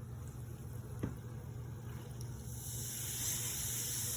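Baking soda and vinegar fizzing in a model volcano: a high hiss that swells up about two and a half seconds in. A single light knock comes about a second in.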